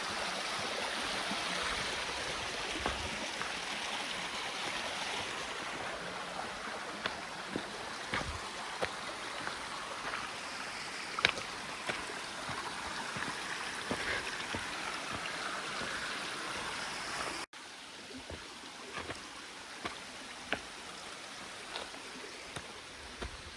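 Mountain stream running steadily, with scattered light taps of footsteps on the trail. About two-thirds of the way through the stream sound cuts abruptly to a quieter level, and the footsteps carry on.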